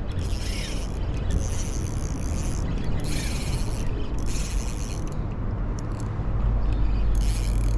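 Shimano Stradic FL 1000HG spinning reel ratcheting in about six half-second bursts as the angler works a hooked fish that is pulling fairly strongly, over a low steady rumble.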